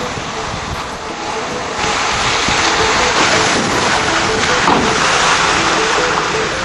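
A loud, steady rushing noise, stepping up about two seconds in, with faint music underneath.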